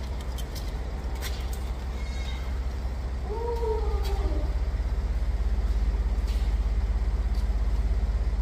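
A vehicle engine idling: a steady low rumble with a fast, even pulse that grows louder about four seconds in. A short voice-like call that rises and falls is heard a few seconds in.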